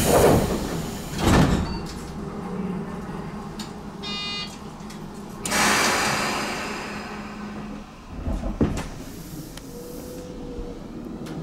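Tobu 10030-series train's doors sliding shut with a hiss and thud, then a short beep about four seconds in. A loud burst of compressed-air hiss follows about a second later as the train gets ready to pull out, with a few sharp knocks near the end.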